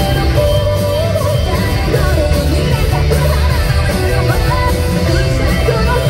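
Live rock band playing loudly, with heavy drums and bass, electric guitar and a female lead singer.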